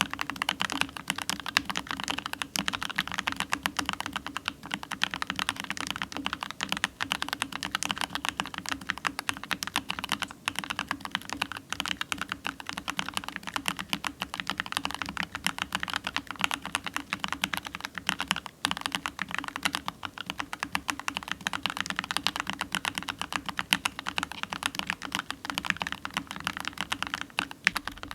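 Continuous typing on an MK870 mechanical keyboard with Gateron G Pro 2.0 yellow linear switches and foam-filled case: a steady, dense stream of keystroke clacks.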